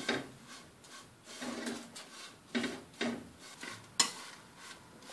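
Wooden chopsticks stirring small dried anchovies as they dry-roast in a pan without oil over low heat: an irregular rustling scrape with each stroke, and a sharp click of chopsticks against the pan about four seconds in.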